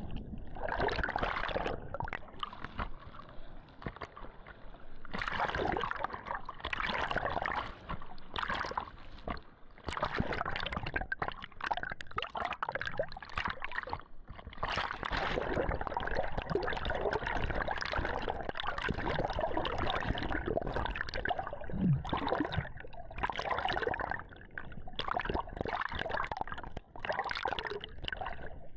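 Water sloshing and gurgling in uneven surges around a spearfishing freediver in the water.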